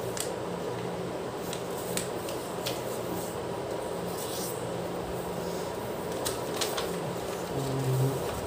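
Origami paper rustling and crackling as it is folded and creased by hand, with a handful of short sharp crinkles over a steady background hum.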